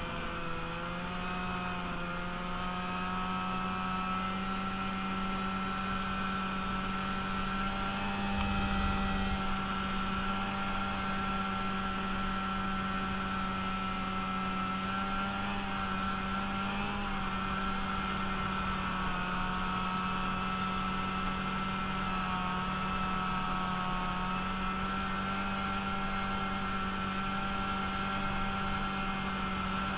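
Engine of a freshly rebuilt machine running at a steady, held speed while being ridden, its pitch rising slightly about a second in and then holding nearly constant. A brief low rush of noise comes about eight seconds in.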